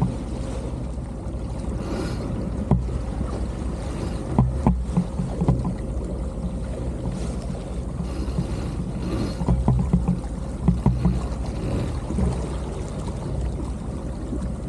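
A Hallberg-Rassy 352 sailboat under way: a steady low drone with water and wind noise, and scattered short knocks.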